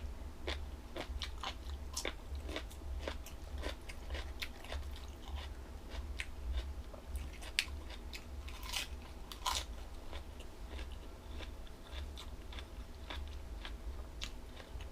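Close-up chewing of crunchy jellyfish salad: irregular wet, crisp crunches and bites many times a second, over a low steady hum.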